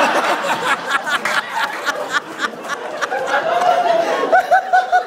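People laughing and chattering, with one person's rhythmic ha-ha-ha laugh near the end.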